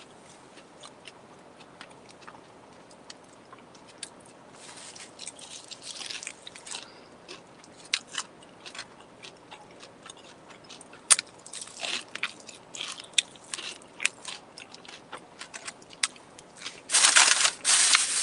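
A person eating close to the microphone: bites, crunching and chewing with scattered sharp clicks. The sound gets much louder and denser near the end.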